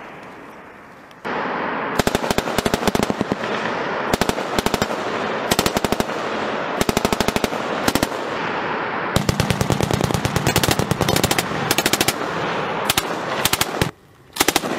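M249 light machine gun fire: a fading echo for the first second, then a string of short automatic bursts from about two seconds in, each lasting a second or two, with brief pauses between them.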